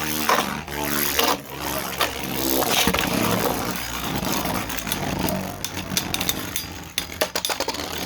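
Two Beyblade spinning tops, one of them 3D-printed, whirring and clashing in a stadium, with a run of sharp clicking hits toward the end.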